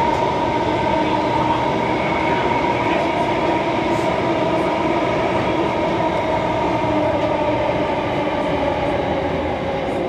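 Alstom C830 metro train running at speed: a steady rumble with a whine of several held tones from the drive, dropping a little in pitch and level near the end.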